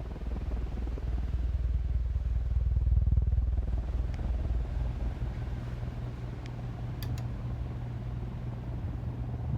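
Restored Hunter Original oil-bath ceiling fan running on high speed: a steady electric motor hum over a low rumble, the little bit of noise typical of these fans.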